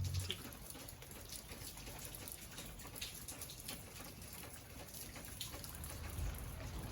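Light rain falling, a faint steady patter of many small drops ticking.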